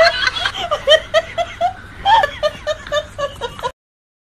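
Laughter: a run of short, high-pitched bursts, about three or four a second, that cuts off suddenly near the end.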